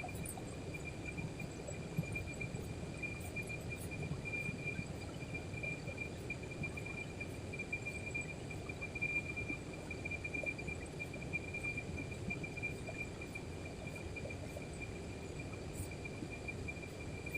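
An insect, likely a cricket, trilling steadily in one high pitch, over a low background rumble.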